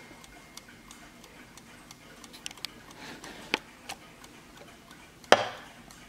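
Brass mantel clock movement ticking with sharp clicks, then a single loud wooden knock with a short ring about five seconds in as the clock case's back door is closed.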